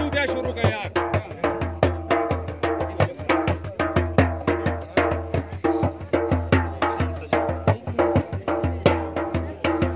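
Attan dance music: a hand frame drum beaten in a fast, driving rhythm, with a pitched melody line held over the beat.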